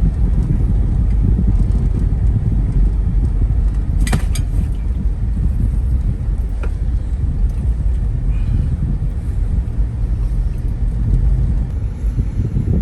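Steady low rumble of a motor vehicle in motion, with a single sharp click about four seconds in.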